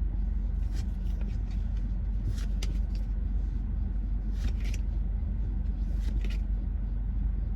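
Steady low rumble of a car idling, heard inside the cabin, with short soft swishes of trading cards being slid off a pack, mostly in pairs every couple of seconds.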